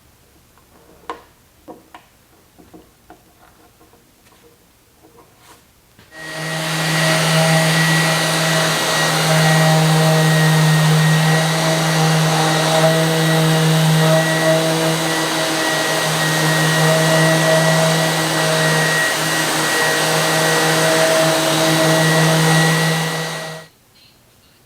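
A few light knocks, then an electric motor-driven shop machine, a vacuum-like whirring machine, switches on about six seconds in and runs steadily with a strong low hum. It cuts off abruptly shortly before the end.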